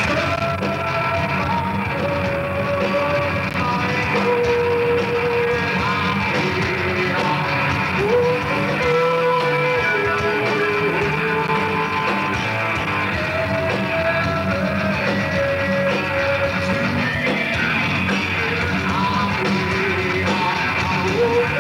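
A live rock band playing loud: electric guitars, bass and drums, with a singer's long held notes that slide up into pitch a few times.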